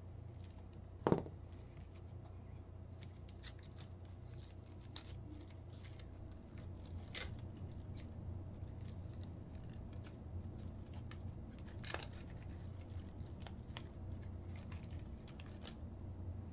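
Brown protective paper being peeled and picked off acrylic robot-kit plates: faint rustling with scattered small clicks, and a sharper click about a second in.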